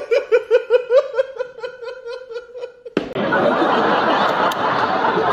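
A high-pitched laugh, a quick, even string of ha-ha pulses about five a second, that stops abruptly about three seconds in. A large audience laughing follows.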